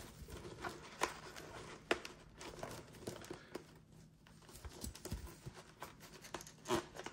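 Faint rustling of a Shoei Neotec II helmet's fabric liner and light plastic clicks as the liner is handled and pulled away from the shell, with a few sharper clicks spread through.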